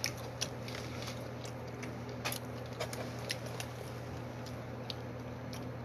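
Someone chewing fried fish: scattered soft mouth clicks and smacks over a steady low background hum.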